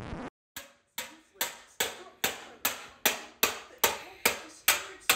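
Sharp, evenly spaced impacts, about two and a half a second, starting about half a second in, each quickly dying away.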